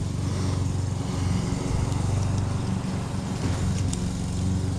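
Lawn mower engine running steadily at a constant speed, a low, even drone.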